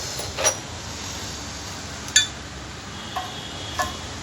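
Metal gearbox parts (shafts, bearings, housing) clinking and knocking together as they are handled: four short strikes, the sharpest about two seconds in, each with a brief metallic ring.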